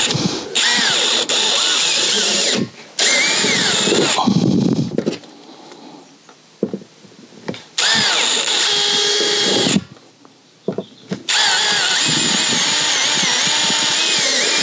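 Cordless drill running in four bursts of one to three seconds with short pauses between, its motor pitch wavering as the bit bites, drilling small bolt holes through the plastic top of a freshwater tank.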